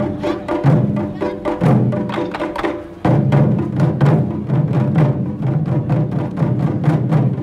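Taiko ensemble playing large Japanese barrel drums (nagado-daiko) with wooden sticks: a fast, dense rhythm of sharp stick strikes over deep drum beats. About three seconds in, after a brief dip, it comes back louder with an even pulse of big low beats.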